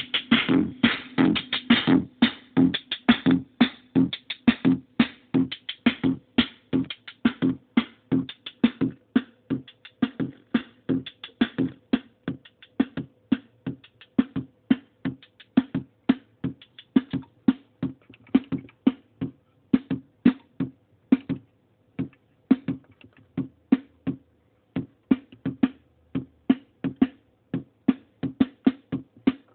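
Korg Monotribe's analog drum sequencer looping a fast pattern of short bass-drum-led hits, several a second, played through a circuit-bent Yamaha computer speaker whose gain pots make it sound crunchy and distorted.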